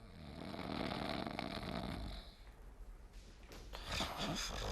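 A person snoring: one long rasping snore breath lasting about two seconds, then a shorter breath near the end with a puff of air let out.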